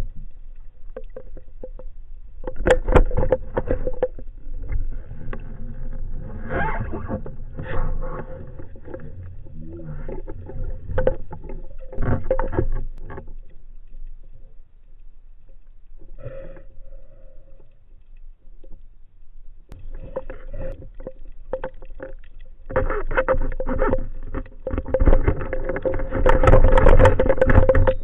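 Water rushing and sloshing against an action camera during a spearfishing dive, in irregular surges with a steady faint hum underneath. It goes quieter for a few seconds in the middle and gets louder and busier near the end.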